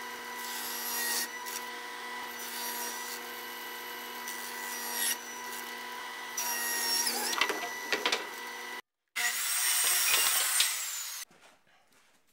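Table saw running with a steady motor hum while it crosscuts 3/4-inch plywood fed on a wooden crosscut sled. After a brief break comes a second short stretch of loud saw noise, then it goes quiet near the end.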